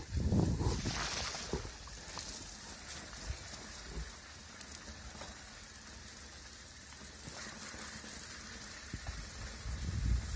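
Wind buffeting the microphone while riding a mountain bike, over the steady hiss of tyres rolling on a wet dirt road. The buffeting is strongest in the first second and picks up again near the end.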